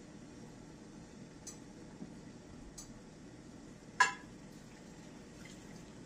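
Hot water poured from a small ceramic measuring cup into a glass baking dish of Jello powder, with light clinks and one sharp ringing clink of the cup against the dish about four seconds in.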